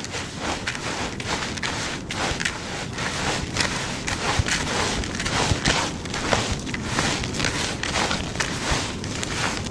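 Hands squeezing and stirring a wet bait mix of rolled oats, cornmeal and creamed corn in a bucket: a continuous crackling squish with many small rustles and clicks.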